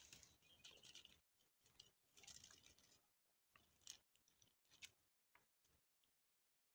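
Near silence with faint scratching and crackling: kittens clawing at the dry, stringy bark of a branch.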